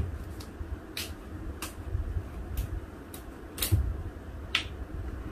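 Plastic screw cap of a Jangsu makgeolli bottle being twisted open, giving about seven sharp clicks at irregular intervals over low handling rumble.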